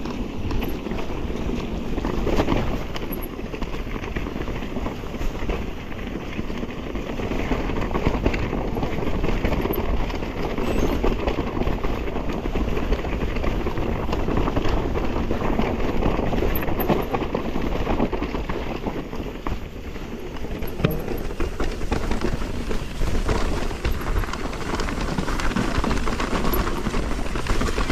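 Ride noise from an electric mountain bike on a rough, rocky trail: tyres rolling and the bike clattering over stones, with a steady run of small knocks and rattles.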